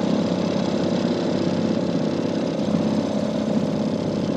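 Small Mercury 2.5 outboard motor running steadily under way, pushing a scanoe upriver.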